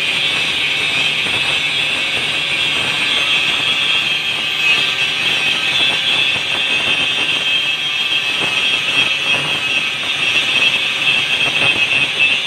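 Angle grinder with its abrasive disc held against steel, a loud, steady, high-pitched grinding whine.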